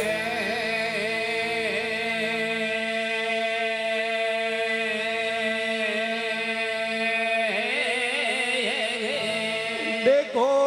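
Devotional folk music: a man singing a long, wavering drawn-out note over a steady harmonium drone, with no drumming. About ten seconds in, his voice comes in louder.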